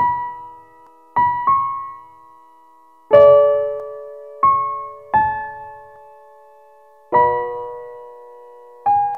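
Slow, soft piano music: single notes and chords struck every second or two, each left to ring and fade. The fullest, loudest chord comes about three seconds in.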